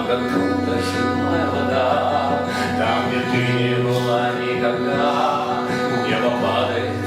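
Music: a song played live, with sustained instrumental notes and long low bass notes under a singing voice.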